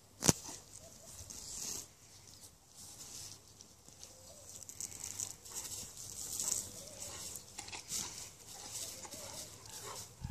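Rustling and tearing of weeds being pulled from a lawn while a Great Dane scrambles about on the grass, with one sharp click about a quarter-second in.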